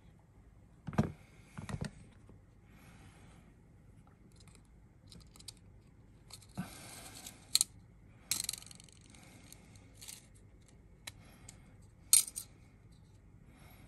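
Small handling sounds of thin Nichrome 80 coil wire and its plastic spool: scattered light clicks and clinks, a brief rustle in the middle, then a sharp snip near the end as the wire is cut with pliers.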